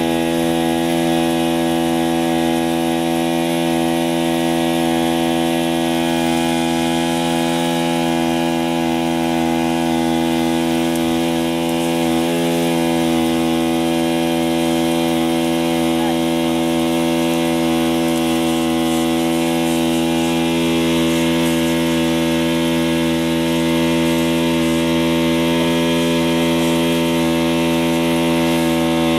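Small portable fire pump engine running steadily at high speed, pushing water through the hose line to the crew. Its note stays at one unchanging pitch throughout.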